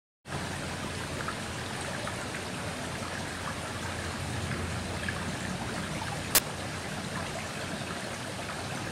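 Steady hiss of water, cutting in abruptly just after the start, with a single sharp click about six seconds in.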